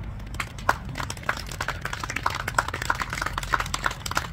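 A small group applauding: separate, irregular hand claps that start about half a second in, grow thicker, and thin out near the end.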